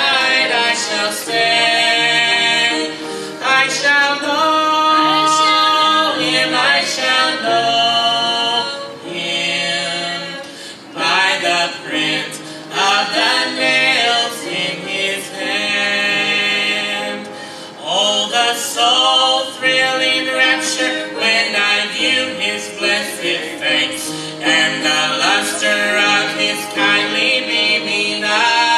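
A man and a woman singing a gospel song together as a duet.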